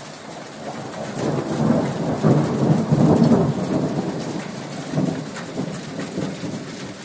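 Thunder rolling over steady rain. The rumble swells about a second in and slowly fades over the next few seconds.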